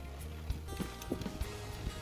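Background music with held notes, a bass line and a recurring percussive beat.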